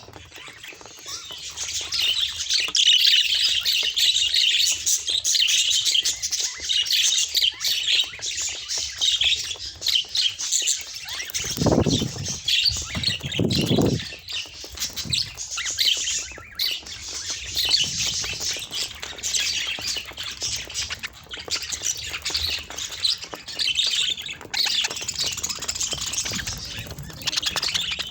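A group of budgerigars chattering, chirping and squawking without pause. About halfway through come two brief low rumbles, a couple of seconds apart.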